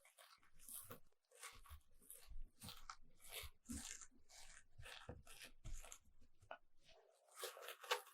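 Close-miked crinkling and crunching, a quick series of short, crisp rustles about two a second, as material is squeezed and handled.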